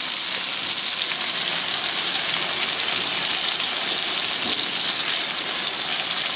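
Hamburger patties and pork steaks sizzling on a grill, with the patties frying in fat on a flat griddle plate: a steady, even hiss.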